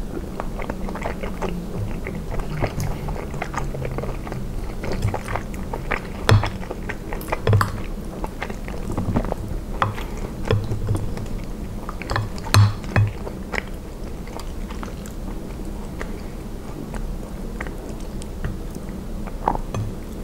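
Close-miked chewing of soft cheese and spinach ravioli in tomato sauce: wet, irregular mouth and lip sounds. There are a few louder moments about six, seven and a half and twelve and a half seconds in.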